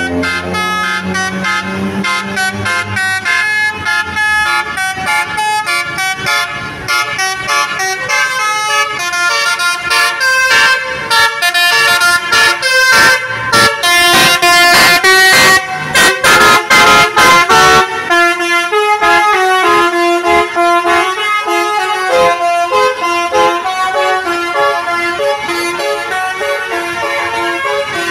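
Telolet Basuri multi-tone bus horn playing a quick melody of stepped notes. It is loudest and broken into short blasts a little past the middle.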